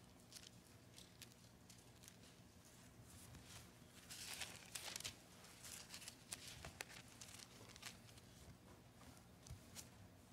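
Faint rustling and soft clicks of thin Bible pages being leafed through to find a verse, with a louder flurry of page-turning about four seconds in.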